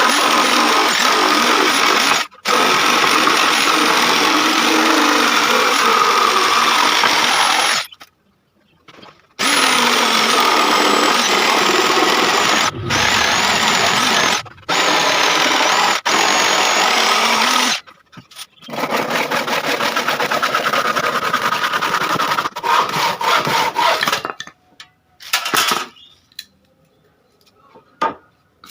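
Electric power tool cutting wood: the motor runs loudly under load in several runs of a few seconds each, with brief stops between them, then a few short bursts near the end.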